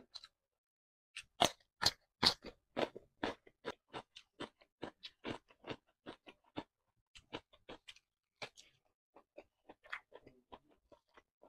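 Close-miked crunchy chewing of raw cucumber, the loudest crunches about a second or two in, then steady chewing at about two chews a second that grows fainter in the second half.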